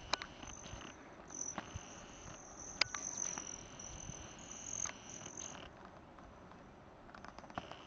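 Hummingbird wings buzzing in a high, thin trill that fades in and out as the birds come and go, dropping away for a couple of seconds near the end, with a few sharp clicks.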